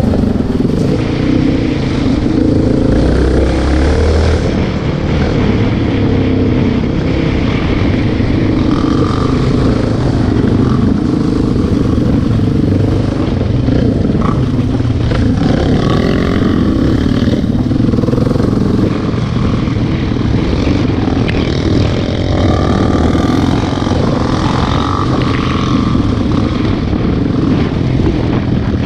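Off-road quad bike (ATV) engines running continuously on a dirt trail, with the throttle rising and falling.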